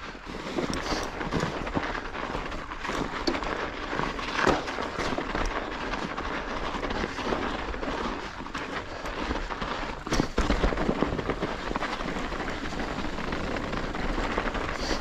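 Mountain bike riding down a snowy trail: a steady rush of tyre and ride noise full of crackles and clicks from the bike rattling over the rough ground, with a sharper knock about ten seconds in.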